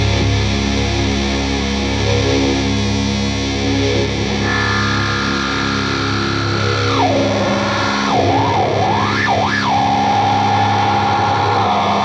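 Heavily distorted electric guitar and bass sustain a chord. About four seconds in, a high held tone comes in, slides down in pitch, wavers up and down several times, then settles on a steady note as the low end fades: effects-laden guitar noise in a heavy stoner-rock track.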